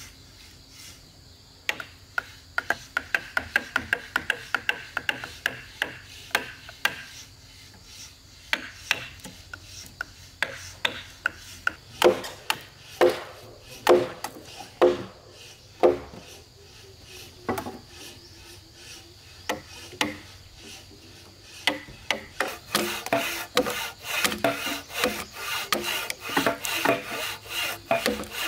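Hand tools working wood, stroke by stroke. First comes a quick run of scraping strokes, then heavier knocks about once a second in the middle, and near the end a faster, denser run of strokes.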